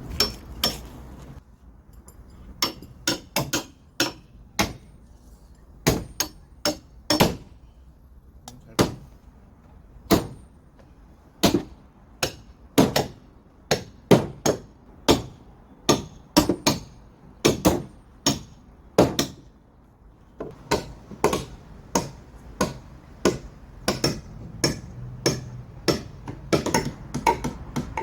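Repeated hammer blows on wood, irregular and sometimes in quick pairs, about one to two strikes a second with short pauses.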